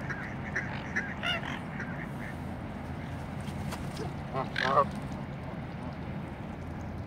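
Waterfowl calling: short scattered quacks and chatter in the first couple of seconds, then one loud Canada goose honk about four and a half seconds in.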